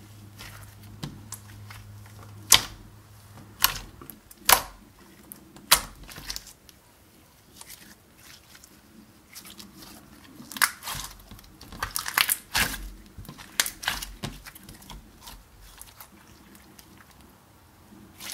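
Clear slime being squeezed, kneaded and stretched by hand, making sharp wet clicks and pops. There are a few single pops in the first six seconds, then a busier run of clicks from about ten to fifteen seconds in.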